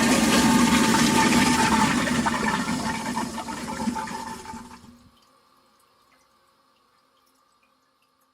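Toilet flushing: water rushing out of the tank into the bowl, fading from about two seconds in and dying away at about five seconds, leaving faint drips.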